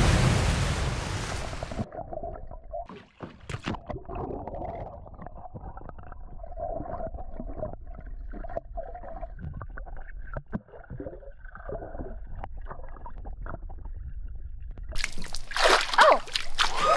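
A pumpkin splashing into a swimming pool, followed by muffled underwater gurgling and bubbling with scattered clicks. Near the end the sound opens up again into splashing at the surface.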